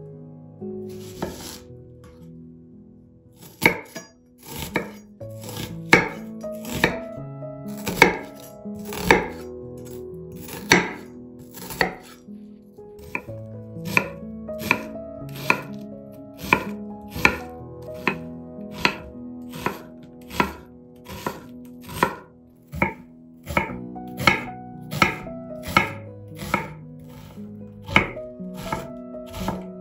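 Knife chopping on a cutting board in steady, even strokes, a little more than one a second, starting a few seconds in.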